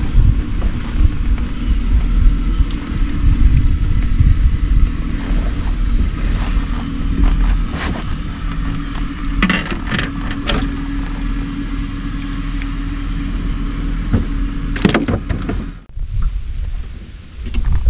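Electric trolling motor humming steadily under a low rumble, with a few sharp clicks and rattles in the middle; the hum stops near the end.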